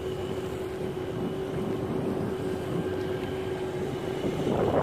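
Boat motor running at a steady pitch, a constant hum over low rushing noise, with a brief swell of broader noise near the end.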